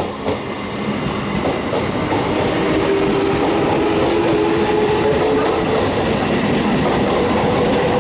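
ICF-built EMU local train running through the station at speed without stopping. Its coaches pass close by with a steady loud rush and the clatter of wheels over the rail joints.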